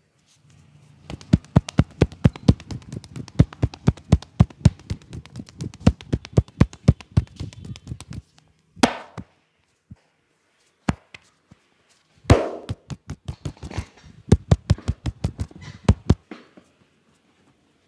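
Percussive hand massage: a barber's hands tapping and slapping rapidly on a customer's head and back, about five strikes a second. A pause with a few louder slaps about halfway through, then a second, shorter run of taps.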